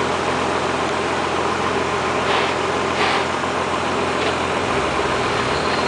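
Nissan Patrol Y60 off-roader's engine running as it crawls through a muddy creek bed, with two brief rushes of noise about two and three seconds in. The low engine note shifts near the end.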